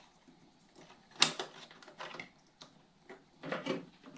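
A few light clicks and knocks from small parts being handled, with the sharpest one about a second in.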